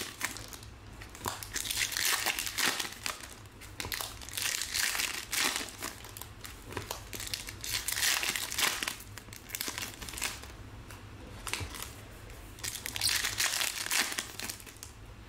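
Foil trading card pack wrappers crinkling and cards rustling as packs are opened and handled, in several irregular bursts with short pauses between them.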